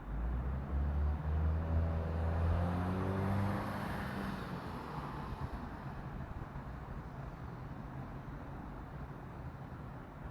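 A motor vehicle's engine accelerating nearby, its pitch rising over about four seconds, then fading into a steady low hum of distant traffic.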